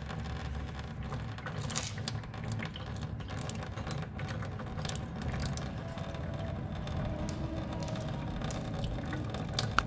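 Engine coolant running out of a Yamaha YXZ1000's opened coolant drain in a thin stream, falling into a plastic drain pan with a steady pattering splash.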